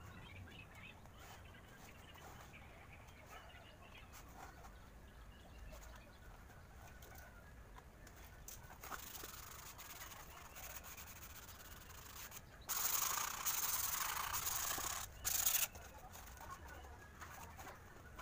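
Adhesive tape pulled off its roll: one long rip of about two seconds, then a short second pull, against faint rustling of the foam wing being handled.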